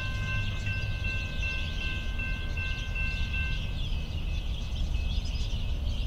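Low steady rumble of an approaching diesel freight train, with the high ringing tones of a grade-crossing warning bell that stop a little over halfway through.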